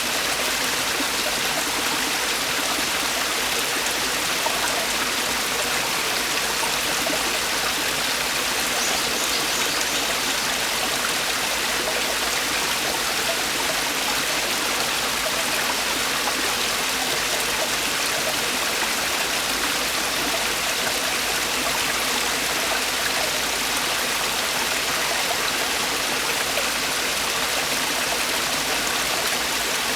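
Mountain stream water falling and rushing over rocks in a steady, even torrent.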